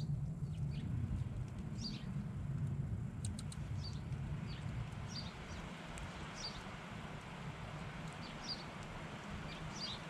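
Small songbirds giving short, high chip calls, about a dozen scattered through, over a steady low rumble.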